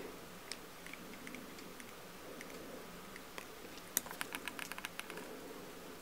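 Faint clicks and taps of hands and tools working at a fly-tying vise while thread is wrapped over a foam strip. A quick run of about ten sharp clicks comes about four seconds in, the first the loudest.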